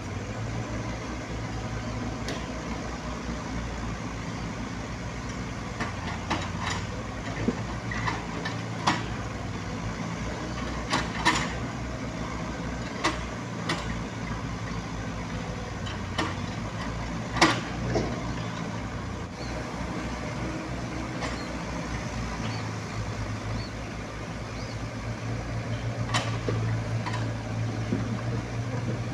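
Diesel engines of Komatsu mini excavators running steadily as they dig, with scattered sharp knocks and clanks from the bucket working the earth and stones; the loudest knock comes about 17 seconds in.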